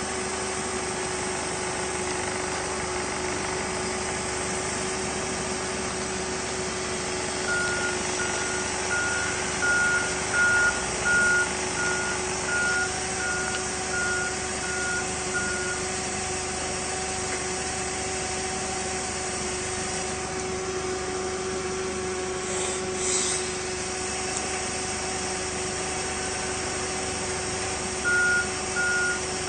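Propane forklift running steadily with a constant hum. Its reversing alarm beeps about twice a second from about seven seconds in for roughly eight seconds, and starts again near the end.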